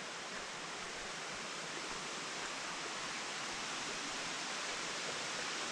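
Steady rushing of a mountain creek running high after rain, growing slightly louder.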